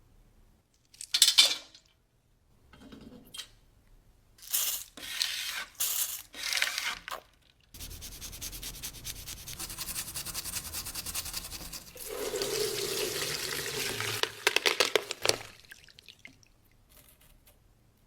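A brush scrubbing, first in a few short spells, then rapidly and without a break for about eight seconds.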